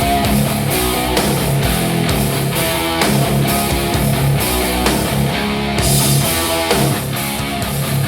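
Rock music with electric guitar, bass and drums, in an instrumental passage, played back through a compact active studio monitor for a listening test.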